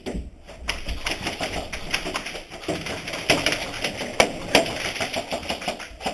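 Airsoft guns firing: rapid, irregular clicking and snapping shots, with a few sharper cracks about three to four and a half seconds in.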